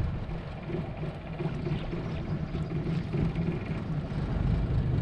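A boat motor idling: a low, steady rumble with a faint hum.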